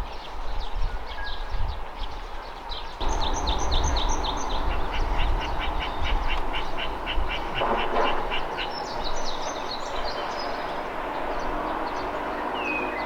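Several songbirds chirping and singing, including a quick, even run of repeated notes, over a steady low rumble.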